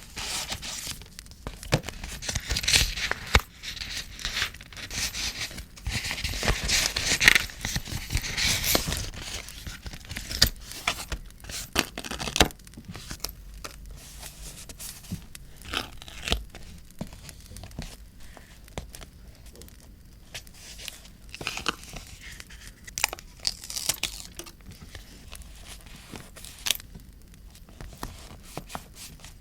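Paper being handled and torn: crinkling, rustling and tearing, busy for the first ten seconds or so, then sparser rustles and light taps.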